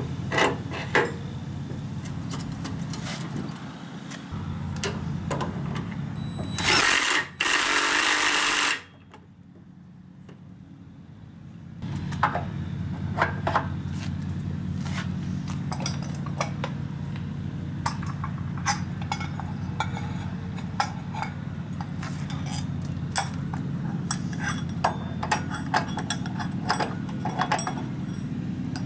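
Metal clinks and clicks of a clutch pulley being handled and slid onto a go-kart engine's output shaft, over a steady low hum. About seven seconds in, a loud rushing noise lasts about two seconds, and the hum then drops away for a few seconds.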